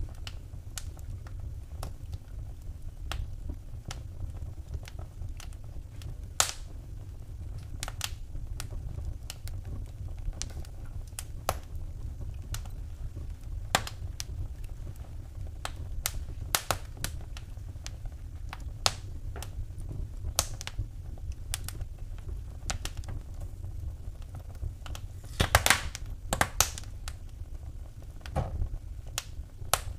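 Wood fire in a fireplace crackling, with irregular sharp pops and snaps over a low steady rumble, and a quick cluster of louder pops near the end.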